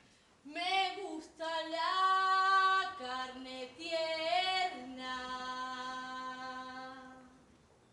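A woman singing solo and unaccompanied in long held notes. A few short phrases are followed by one long low note that fades away near the end.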